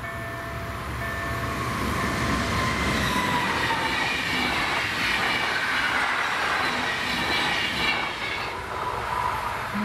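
Intercity passenger train passing over the level crossing: rushing wheel-on-rail noise builds over the first few seconds and stays loud, with high ringing tones from wheels and rails. At the start the crossing's warning bell is still heard ringing about once a second before the train noise covers it.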